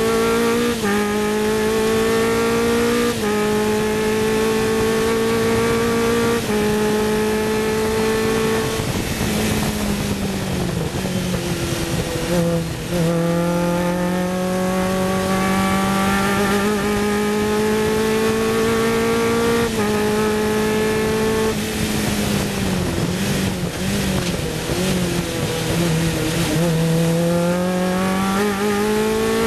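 Sports 2000 race car's engine heard from the cockpit. It pulls hard through the gears with quick upshifts that drop the pitch, then lifts and brakes with the revs falling, and accelerates again, twice over. This is the rise-and-fall of a car at racing speed through a lap's corners.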